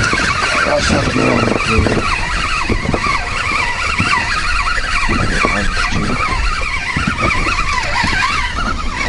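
Steady wind rushing over an action-camera microphone, with choppy water slapping against an inflatable boat's hull.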